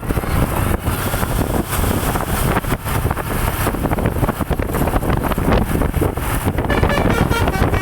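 A bus going past close by: engine and road noise, with wind buffeting the microphone.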